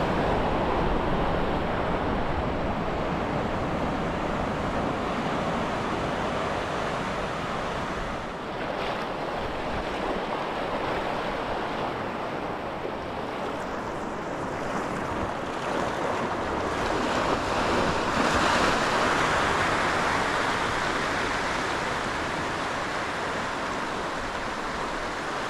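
Sea surf breaking and washing over a rocky ledge: a steady rushing of water that swells briefly about eighteen seconds in.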